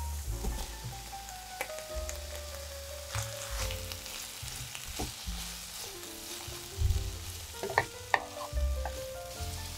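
Wet, crackling stirring of a vegetable salad being mixed in a bowl, with scattered clicks of the utensil, over background music with a stepping melody and bass.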